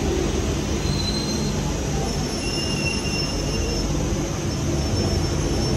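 London Underground train in a station: a steady rumble of wheels on rail with a few short, thin, high wheel squeals about a second in and again around the middle.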